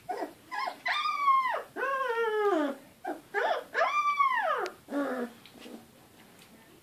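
Young goldador puppy whining and crying: a few short squeaks and three long cries of about a second each that rise and then fall in pitch, trailing off over the last couple of seconds.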